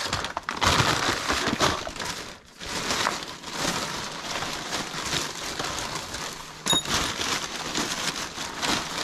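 Thin plastic shopping bag rustling and crinkling in irregular bursts as gloved hands rummage through it and pull items out, with a short high-pitched tone about two-thirds of the way through.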